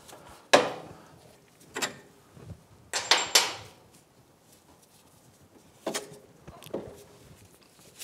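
A handful of sharp metal knocks and clunks from the front hub knuckle and lower ball joint of a Polaris Ranger 900 XP as the ball joint is dropped out and the loose hub is handled. The loudest knock comes about half a second in, with a quick cluster around three seconds and two lighter clunks near the end.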